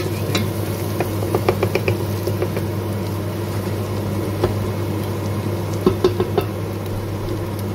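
Chopped onion sautéing in oil in a stainless steel pot, crackling lightly, while a wooden spatula stirs and taps against the pot. The clicks cluster about a second in and again around six seconds. A steady low hum sits underneath.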